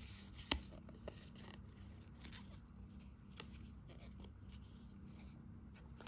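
Faint handling noise: a few light clicks, the clearest about half a second in, and some soft rubbing over a low steady hum.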